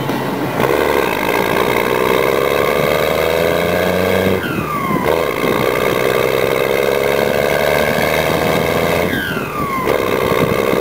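Straight-piped, side-exit, fuel-tuned 12-valve Cummins 5.9 L inline-six diesel in a 1991 Dodge Ram, accelerating hard. The revs climb, fall at an upshift about four seconds in, climb again and fall at a second shift about five seconds later. A falling whistle comes at each shift.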